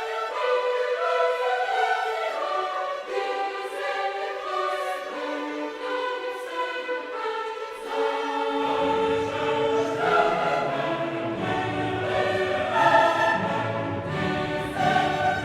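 Classical choral music: a choir singing with orchestra, the lower instruments coming in fuller about halfway through.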